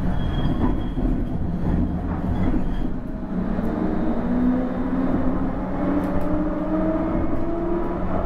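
Inside a PESA Swing 122NbT Duo low-floor tram running on track: a steady rumble of the wheels and running gear. From about three seconds in, the electric whine of the traction drive rises steadily in pitch as the tram picks up speed.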